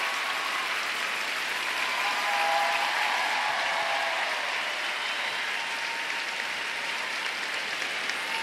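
Arena crowd applauding, a steady wash of clapping that swells a little about two to three seconds in.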